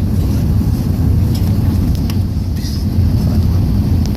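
Airbus A380 in flight after takeoff: a steady, low roar of engines and rushing air.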